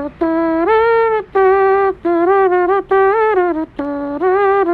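Background music: a simple tune of held notes, one at a time, stepping up and down in small intervals, with short breaks between phrases.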